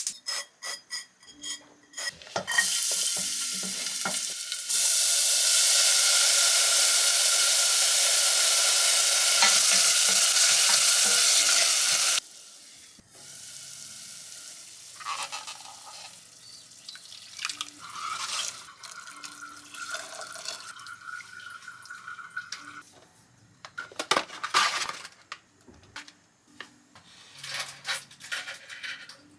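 Kitchen cooking sounds: a loud steady rushing hiss for several seconds that cuts off suddenly, with clinks and knocks of dishes and utensils before and after.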